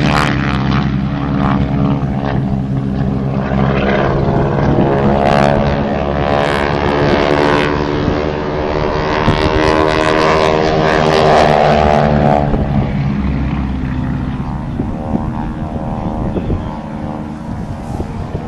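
Piston engines of two propeller-driven aerobatic planes droning overhead while they fly loops. The engine note climbs in pitch and then drops off about two-thirds of the way through, growing slightly fainter near the end.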